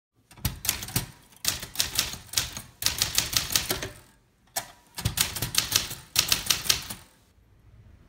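1939 Underwood Master manual typewriter being typed on: runs of sharp keystroke clacks as the type bars strike the platen, with a short pause about halfway through.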